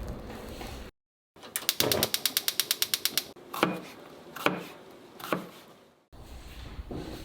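Gas stove igniter clicking rapidly, about ten clicks a second for a second and a half, followed by three separate knocks.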